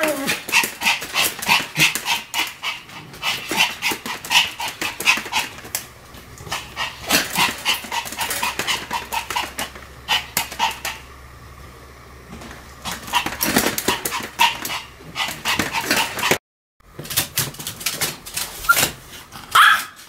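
Pomeranian barking in rapid runs of short barks and yips, easing off briefly about eleven seconds in before starting up again.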